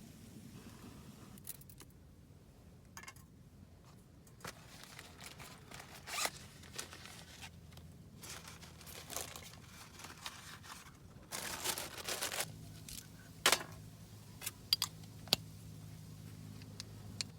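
Close handling noises: short rasping, zip-like scrapes and rustles, the longest about two-thirds of the way in, followed by a few sharp clicks near the end.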